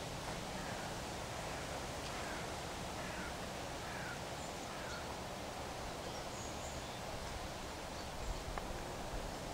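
Steady outdoor background hiss with faint bird calls: short, falling chirps repeated every second or so through the first half, a few higher chirps later, and a soft thump near the end.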